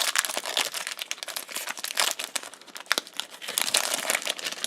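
Foil Pokémon booster pack wrapper being torn open and crinkled by hand: a run of sharp crackles and rustles.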